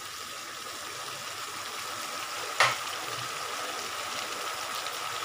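Onion, garlic, chilli and tomato masala paste sizzling steadily in oil in a kadai, being fried until the oil rises to the surface. A single knock about halfway through.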